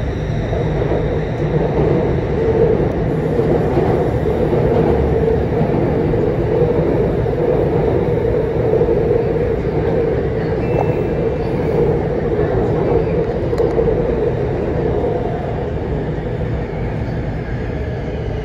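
MRT Blue Line metro train running between stations, heard from inside the carriage: a steady rumble that eases slightly near the end.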